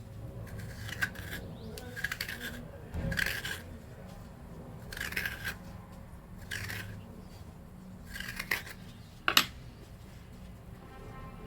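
A spoon scraping out the flesh of a raw turnip in about six short strokes a second or two apart, then a sharp click about nine seconds in as the spoon knocks.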